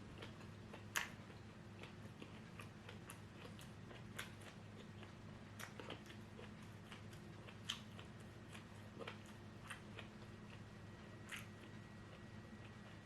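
Close-up eating sounds of someone chewing shrimp and fried lumpia: scattered crisp crunches and mouth clicks, the sharpest about a second in, over a faint steady low hum.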